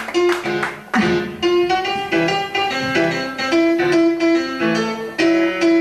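Live music: a piano playing a song's introduction, a run of notes over chords.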